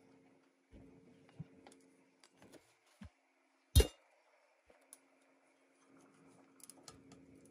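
Blackberries tapping and rustling into a glass measuring cup from a wire mesh strainer. A single sharp knock nearly four seconds in as the glass measuring cup is set down on a cloth-covered table, over a faint steady hum.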